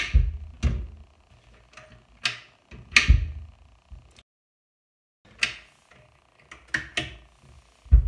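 Bathroom vanity cabinet door being tugged open against a newly fitted adhesive child-safety lock and pushed shut again: a series of sharp knocks and thuds as the door catches on the latch and closes. The sound cuts to dead silence for about a second just past the middle.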